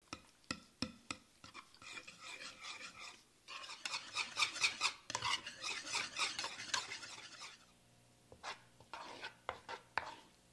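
Wire whisk beating a thick creamy herb sauce in a wooden bowl, the wires clicking and scraping against the bowl in a fast, steady run of strokes. The whisking thins out to a few separate knocks near the end.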